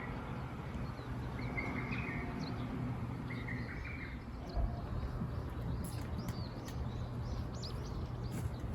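Birds chirping in short calls, several in the first few seconds and quicker, higher ones in the second half, over a steady low hum and background noise.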